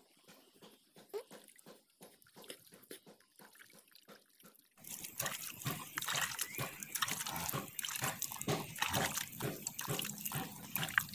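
A cow being milked by hand: quick, repeated squirts of milk splashing into a vessel. It gets louder, with more hiss, from about five seconds in.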